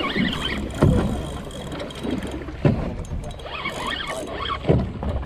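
Small boat's hull slapping on the waves, a sudden thump about every two seconds over a steady wash of water and wind.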